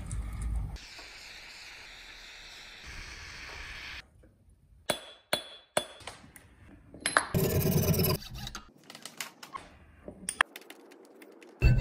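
Silver-working sounds in quick succession: silver grains clinking as they pour into a crucible, a steady hiss for a few seconds, then sharp clicks and a loud grinding burst as the silver goes through a jeweller's rolling mill.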